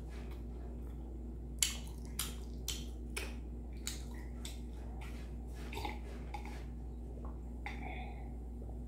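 A person gulping down milk from a mug in one go, a run of short swallowing clicks about every half second, over a steady low hum.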